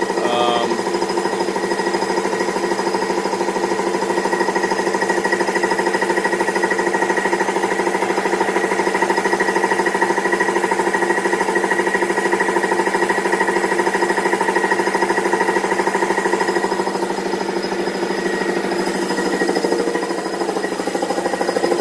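Kobalt two-stage 175 psi air compressor running continuously on its break-in run, the electric motor and pump giving a loud, steady, rapidly pulsing hum.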